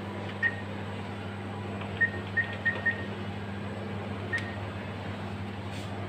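Diebold ATM key beeps as keys are pressed: about six short, same-pitched beeps, one near the start, four in quick succession around two to three seconds in, and one more after four seconds, over a steady low hum.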